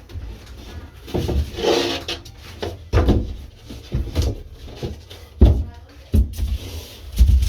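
Irregular knocks, bumps and scrapes of a wooden board being handled and fitted into place during a water-damage wall repair.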